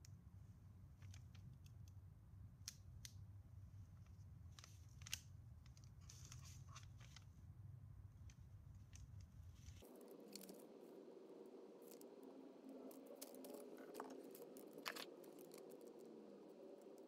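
Faint clicks, taps and paper crinkles from hands handling a small paper-wrapped firework ball shell with a hot glue gun and a screwdriver, over a low steady hum. About ten seconds in the background hum changes abruptly.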